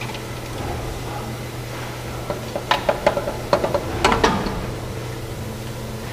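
Steady low machine hum, with a quick run of sharp clicks and knocks between about two and four seconds in, as parts of a rigid box making machine are handled and adjusted.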